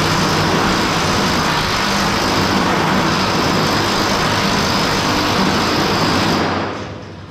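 Pneumatic air hammer of a DIY planishing hammer buzzing in rapid blows against a welded sheet-steel cab roof seam, stretching the sunken weld to smooth it out; it stops near the end.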